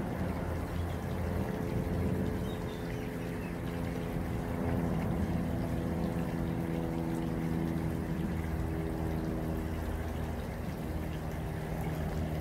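Water pouring steadily from a pond spout into a garden pond, with a low steady hum under it.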